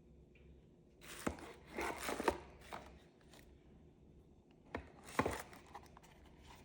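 Handling noise from the doorbell unit and its packaging: sharp clicks and short rustles in two clusters, one about a second in and one about five seconds in.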